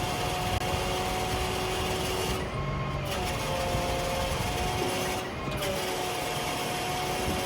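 Digger derrick utility truck running, its diesel engine and hydraulics giving a steady mechanical whine at a few pitches over a rumbling background. The whine eases briefly twice.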